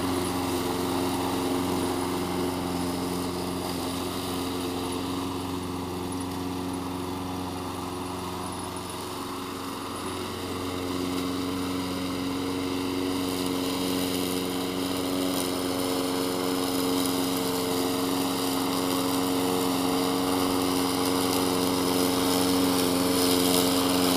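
Small gasoline push-mower engine running steadily on a remote-controlled slope mower. It grows a little fainter as the mower drives away and louder again as it comes back.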